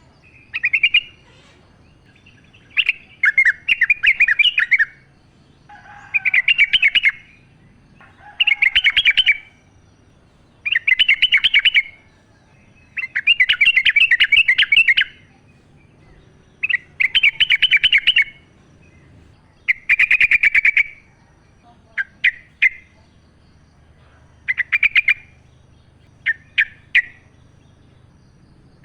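Yellow-vented bulbul singing in bubbly phrases of rapid notes, one every two seconds or so, with shorter, clipped phrases in the last third.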